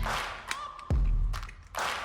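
Background music: deep bass hits with whooshing noise sweeps between them.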